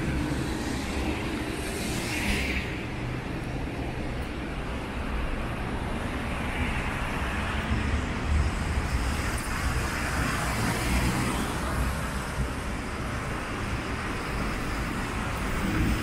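City road traffic: cars and other vehicles passing on wet asphalt, a steady low rumble of engines with tyre hiss.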